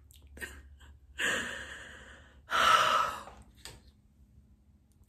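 A woman sighing heavily twice, the breaths of someone overwhelmed with emotion: one about a second in, a longer one at about two and a half seconds.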